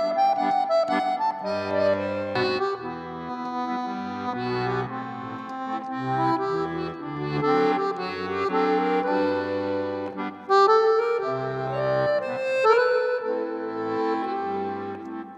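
Instrumental background music: a melody over changing bass notes.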